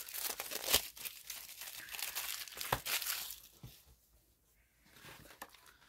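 Packaging being torn open and crinkled by hand, with a few sharp clicks, stopping about three seconds in.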